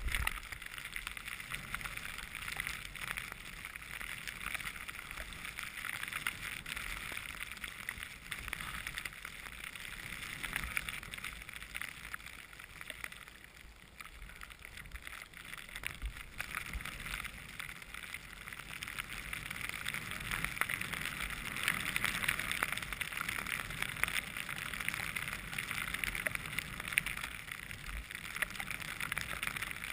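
Skis hissing steadily through deep powder snow during a descent. The hiss eases off about halfway, then grows louder toward the end, with a few dull thumps along the way.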